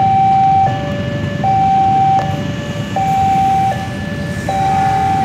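Railway level-crossing alarm sounding a steady two-tone high-low chime, each tone held about three-quarters of a second, over the low rumble of an approaching diesel locomotive.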